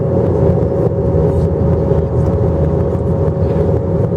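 Steady cabin noise of an airliner: the low drone of the jet engines and rushing air, with a constant hum running through it.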